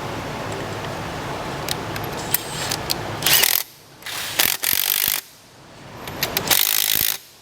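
Coil spring compressors being run down on a strut with a ratcheting tool. There is a steady mechanical whirr for about three seconds, then several short, loud bursts as the tool drives the compressor screws.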